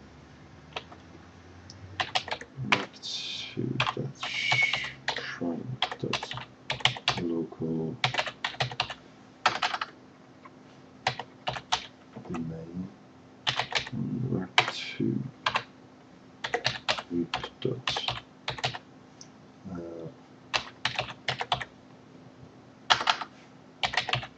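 Typing on a computer keyboard: quick runs of key clicks separated by short pauses.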